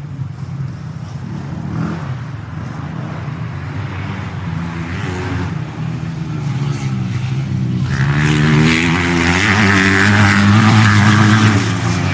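Motorcycle engine running, its pitch rising and falling, growing louder about two-thirds of the way in.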